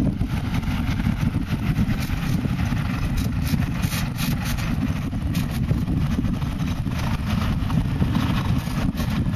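Tractor engine running steadily under load as it pulls a multi-row sugar-beet precision drill across the field.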